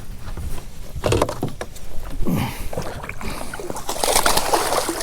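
Water splashing in several short bursts as a hooked bass thrashes at the surface while being landed.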